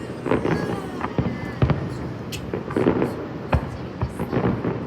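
Fireworks shells bursting in a quick, irregular string of bangs, about a dozen over a few seconds, each followed by a rumbling echo.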